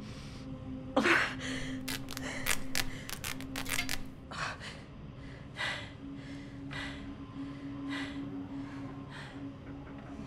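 A person's sharp, pained breaths and gasps about once a second, with quick clicks from about two to four seconds in. A steady low hum runs underneath.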